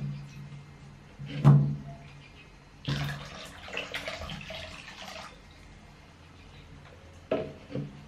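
Water splashing as a hand scoops it from a plastic basin over a baby monkey being bathed. There are a few separate splashes, the loudest about a second and a half in, then a longer stretch of splashing and dripping from about three to five seconds in, and two short splashes near the end.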